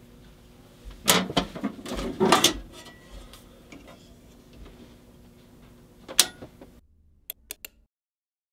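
Metal door of a Westinghouse circuit-breaker panel opened with a burst of clatter and rattling, followed about six seconds in by a single sharp click of a breaker being switched. The sound then cuts out near the end.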